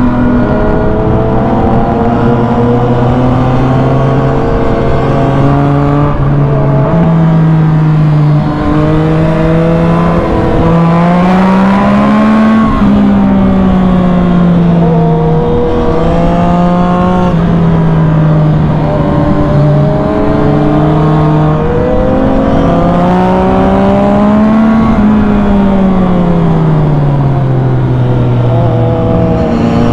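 Yamaha MT-09 SP's three-cylinder engine through an Arrow full exhaust system, heard from the bike while riding: the engine note steps and slides as the throttle opens and closes, climbing twice to a peak and easing back down after each.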